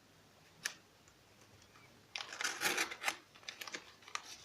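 A single click, then a spell of crinkling and rustling as a plastic-wrapped parcel is handled and opened.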